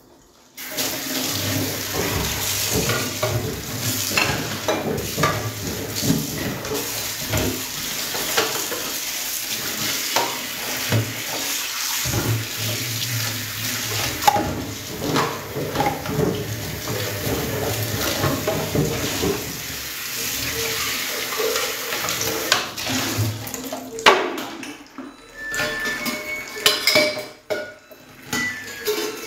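Kitchen tap running into a steel sink while dishes and cutlery are washed, with clinks of crockery and metal throughout. The water stops about 24 seconds in, leaving separate clinks and knocks as dishes are set in the drying rack.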